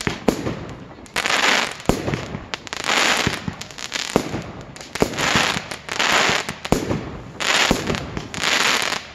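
Aerial fireworks going off in quick succession: sharp bangs from launches and bursts, about one or two a second, several of them followed by a short hissing crackle.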